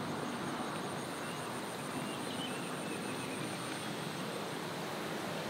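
Steady outdoor field ambience: an even rushing background with insects trilling in a fast, high, pulsing chorus throughout.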